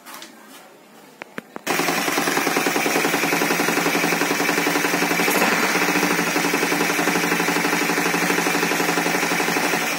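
Suzuki Access 125 scooter's single-cylinder four-stroke engine catching about two seconds in, after a few clicks, and then running steadily on its freshly cleaned carburettor. The running includes a rushing-air noise from the open intake, because the air filter is not yet fitted.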